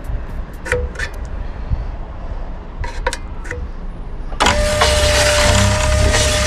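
A 12-volt electric line and net hauler, its motor switched on about four and a half seconds in and running with a steady whine and gear noise. A few light clicks of handling come before it.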